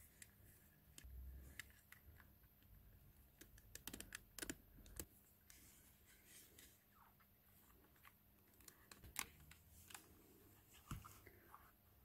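Faint clicks and taps of hard cast-resin puzzle pieces being handled and pressed onto a plastic 2x2 cube core, with a few sharper clicks standing out against near silence.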